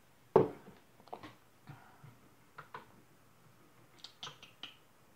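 Small hard objects handled on a desk: one loud knock about half a second in, like something set down, followed by a string of lighter clicks and taps and a quick run of sharper clicks near the end.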